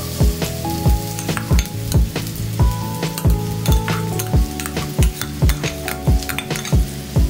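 Chopped red onion sizzling and crackling in hot oil in a wok. Background music with a steady drum beat, about two thumps a second, is the loudest thing.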